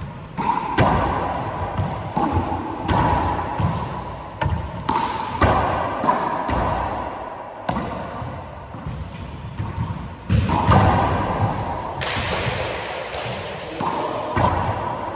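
A handball rally in an enclosed court: the small rubber ball smacks off the walls, the hardwood floor and players' hands, with irregular sharp echoing hits one or two a second and a lull in the middle. Short sneaker squeaks on the hardwood come between the hits.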